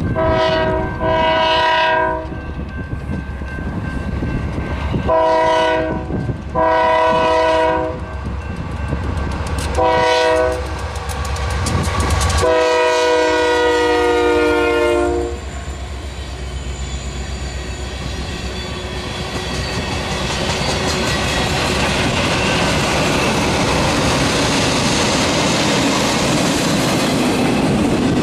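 Union Pacific freight train's lead locomotive, a GE AC4400CW, sounding its multi-note horn in a series of blasts that ends long, long, short, long: the grade-crossing warning. The final long blast runs as the locomotives pass. After that the freight cars roll by with a steady clickety-clack of wheels over rail joints, growing louder toward the end.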